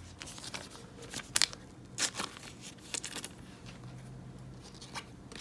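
Plastic crinkling and a few sharp clicks from handling trading cards, with a card being slid into a soft plastic sleeve.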